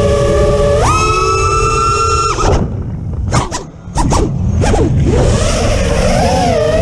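Quadcopter motors and propellers whining steadily, then about a second in the throttle is punched and the pitch jumps sharply up as it climbs. Near the middle the throttle drops away and the motors give several short, quick blips as the quad tumbles, then settle back into a steady whine with a slightly wavering pitch. Wind rushes over the onboard GoPro's microphone.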